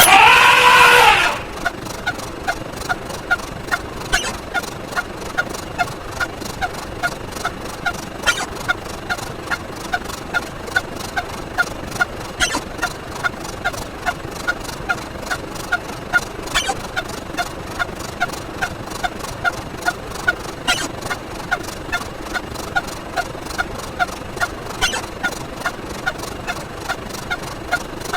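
A rapid, even string of short sound-effect clips, about three a second, with a sharper click roughly every four seconds. At the very start there is a louder, second-long effect whose pitch bends downward.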